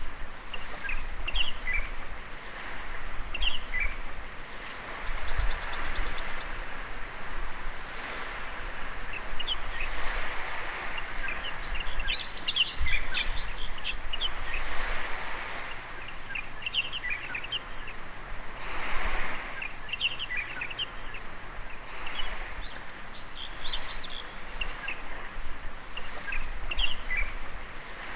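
Small birds chirping and calling in short, repeated notes over a steady wash of waves at a beach's edge, with a wave swelling up about nineteen seconds in.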